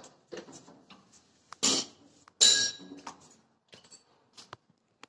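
Irregular clicks, knocks and clatter of the camera being handled and moved about next to a tractor that is not running, with two louder clattering knocks about one and a half and two and a half seconds in.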